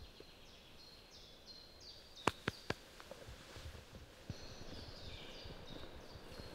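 Songbirds singing in woodland, repeating runs of short high notes over a faint outdoor background. Three sharp clicks come close together a little over two seconds in.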